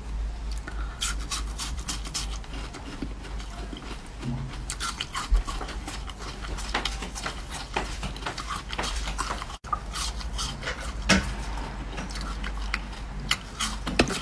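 Close-miked eating sounds: bites into and chewing of a purple frozen treat, irregular sharp crunches and crackles scattered throughout, over a steady low hum.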